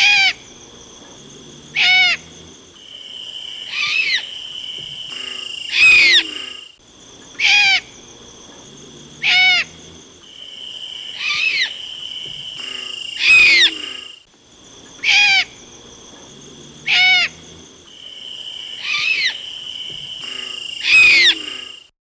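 Owl calls played as a soundtrack: short, sharp cries that drop in pitch, about one every two seconds, in a sequence that repeats about every seven seconds. Steady high tones are held behind some of the cries.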